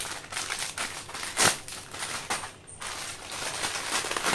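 Foil snack packet crinkling as it is handled and cut open with scissors: a dense run of crackles and rustles, with one louder, sharper crackle about a second and a half in.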